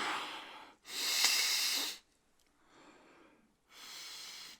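A man sniffing and breathing hard through his nose close to the microphone, four long breaths of about a second each, the second the loudest and the third faint.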